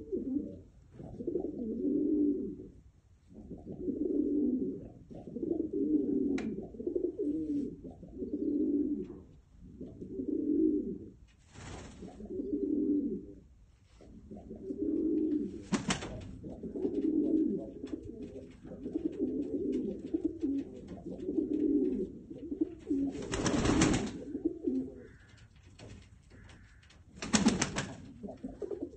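White feather-footed domestic pigeons cooing, a low coo about every second and a half, while a puffed-up bird with fanned tail struts in courtship display. A few short noisy bursts cut across the cooing, the loudest a little after two-thirds of the way through.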